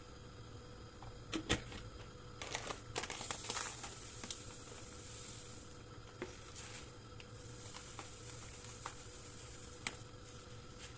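Kitchen handling sounds: a few sharp clicks and taps, with a stretch of crinkling rustle about two and a half seconds in, over a steady faint hum.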